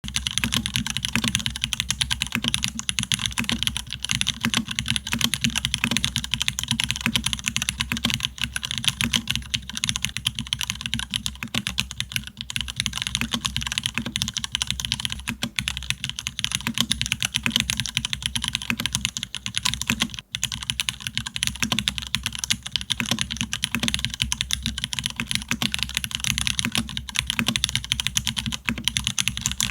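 Fast, continuous typing on a mechanical keyboard with factory-lubed Cherry MX2A Black linear switches, mounted on a carbon plate with no foam. A dense stream of keystroke clicks, with one brief pause at about twenty seconds.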